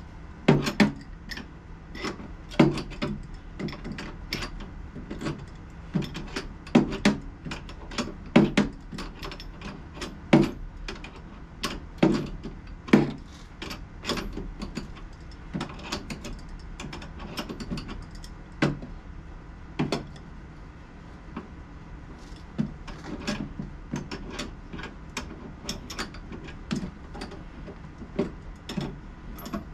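Irregular sharp clicks and knocks of hand tools and loose metal hardware as bolts are taken out of a motorcycle's saddlebag and rear fender mounts, one or two every second or so.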